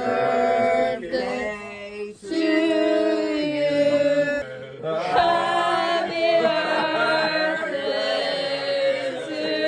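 Background music: a song with a sung vocal line over a steady backing.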